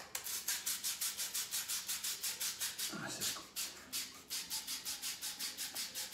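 Tarnished copper pipe scrubbed back and forth with a copper pipe cleaner: rapid, even rasping strokes, about six a second, scouring the dirty surface back to bare copper for soldering.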